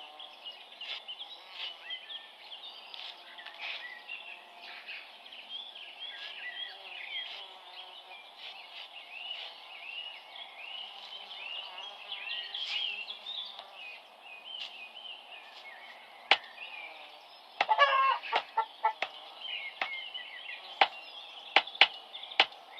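Birds chirping and calling throughout. In the last third come sharp knocks and clatters, with a quick rattling run of them a little past three-quarters of the way through.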